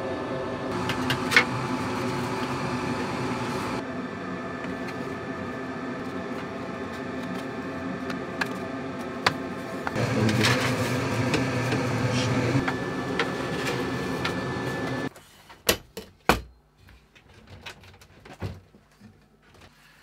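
Laser engraver running as it cuts a thin plywood template: a steady machine hum with fan noise and a few ticks. It cuts off abruptly about fifteen seconds in and is followed by a few light taps and knocks.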